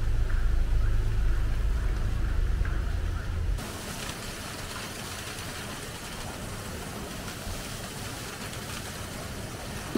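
Steady background noise: a heavy low rumble for about three and a half seconds, then an abrupt cut to a quieter, even hiss.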